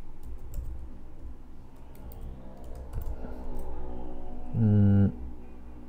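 Computer keyboard and mouse clicks, a few scattered taps over the first few seconds. About five seconds in comes a brief low hum, the loudest sound.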